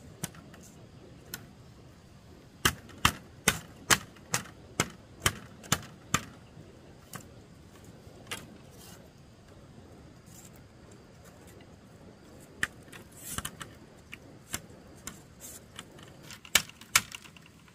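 Hammering on a wooden wall: a run of about nine even blows, roughly two a second, then scattered lighter taps and knocks.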